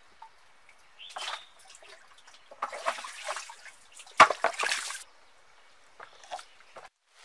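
A bucket on a rope drawing water from a stone-lined well: water sloshes and splashes in several irregular bursts, the loudest a sharp splash about four seconds in, with smaller splashes and drips near the end.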